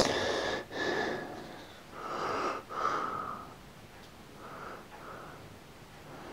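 A person's breathing close to the microphone: several loud sniffing, wheezy breaths in the first few seconds, each with a faint whistle, then softer breaths.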